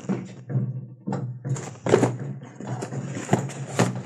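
A string of irregular knocks, taps and thuds, as of objects being handled and set down, over a faint steady low hum.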